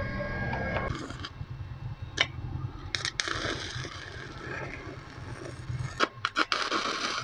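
Stick (MMA) welding arc from a Miltec MMA-300G inverter welder on a test weld after its IGBTs were replaced. The electrode is struck with sharp pops, and the arc crackles and hisses in two runs, one about three seconds in and one near the end.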